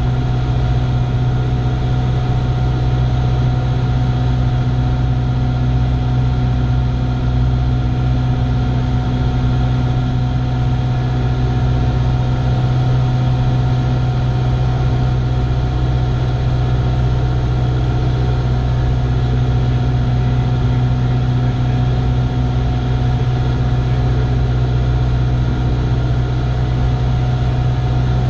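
Cessna 172's piston engine and propeller droning steadily in cruise flight, heard inside the cockpit as a loud, even low hum that holds one pitch.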